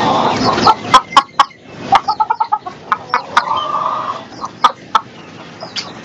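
Crested black hen clucking in short calls, among scattered sharp taps. A loud rush of noise fills the first second.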